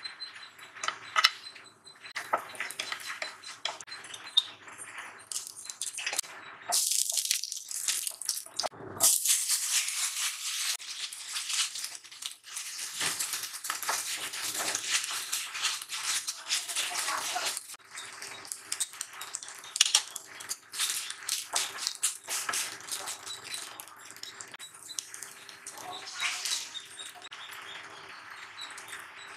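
Cumin seeds and cashews sizzling in hot oil in a nonstick pan, then long-grain rice stirred and fried with a wooden spatula, the grains rattling and scraping against the pan, busiest through the middle stretch. Water is poured over the rice near the end.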